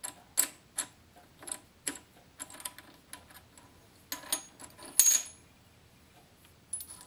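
Small steel lathe parts clinking and clattering against each other and the lathe as they are handled: a dozen or so sharp metallic clicks, the loudest ringing clink about five seconds in.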